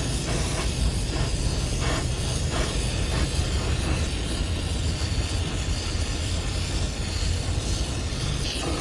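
Brazing torch burning with a steady hissing rush and a low rumble, with a few light taps in the first three seconds.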